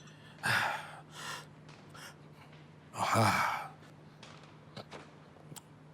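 A man breathing out hard twice after gulping liquor: a short gasp about half a second in, then a longer, partly voiced sigh at about three seconds.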